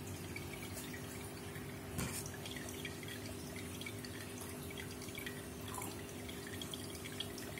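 Aquarium sponge filter bubbling quietly, with small drips and pops of air bubbles breaking at the water surface over a steady low hum. One slightly louder pop about two seconds in.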